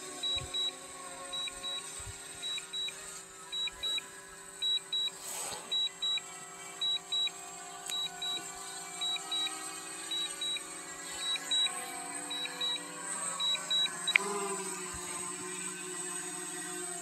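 DJI Fly app's auto-landing warning: short high beeps in pairs, repeating steadily over a steady hum, then a click about fourteen seconds in and the beeping stops.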